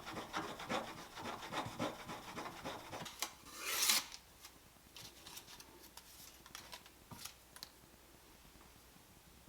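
Smoothing plane iron stroked on a leather strop, about three quick rubbing strokes a second. A louder, longer scrape comes near four seconds in, and after that only faint clicks.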